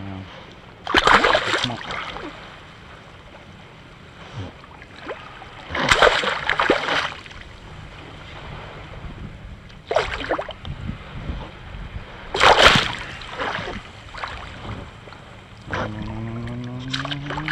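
Water splashing beside a kayak in four short bursts, from a caught fish being held in the water to revive it.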